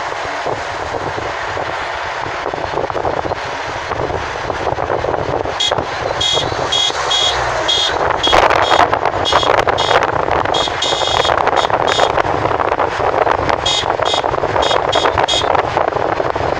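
Steady road and wind noise of a moving vehicle. About six seconds in, a string of short, high beeps begins and keeps sounding on and off.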